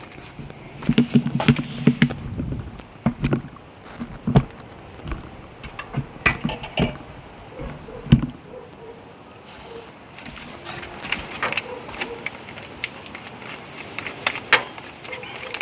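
Hands wrestling a stiff braided radiator hose and its aluminium fitting onto the engine's coolant outlet: scattered clicks, clacks and rustling, with a few sharper knocks of metal on metal.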